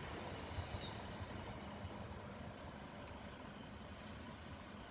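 Two coupled Class 153 diesel railcars pulling away into the distance: a low, steady rumble that slowly fades.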